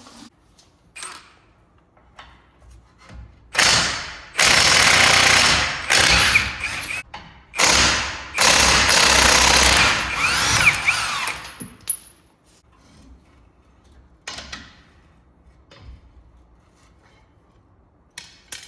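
Power tool running in about six loud bursts of up to two seconds each over roughly eight seconds, with a few faint knocks before and after.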